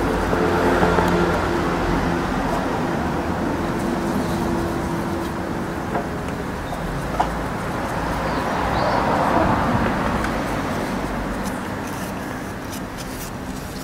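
Outdoor road-traffic noise: a steady vehicle engine rumble with a hum that fades after about five seconds, then a second swell of traffic noise about eight to ten seconds in. Two light clicks come near the middle.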